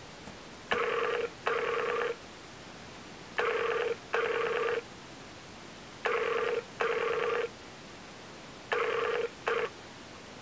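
Outgoing call ringing tone played through a tablet's video-calling app: four double rings, each pair of short steady tones about two and a half seconds after the last. The last ring of the fourth pair is cut short.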